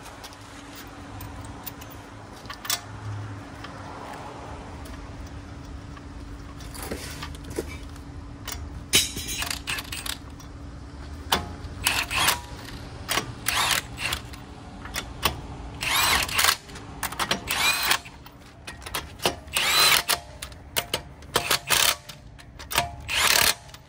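Impact wrench with a 21 mm socket driving wheel lug nuts tight in a series of short bursts, most of them in the second half, each nut run down in turn in a star pattern.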